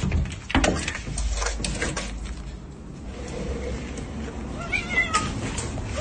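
A few short knocks in the first two seconds, then a kitten meowing once near the end, with another meow starting just as it ends, as the kittens wait for a plate of food.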